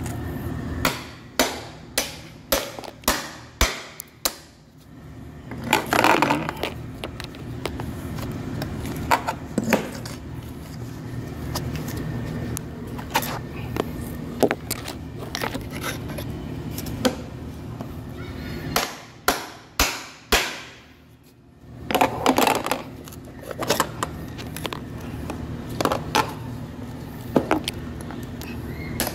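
Hammer blows driving a chisel against a metal door threshold to cut and pry it loose, in sharp separate strikes that come in quick runs, with a couple of longer metal scrapes in between.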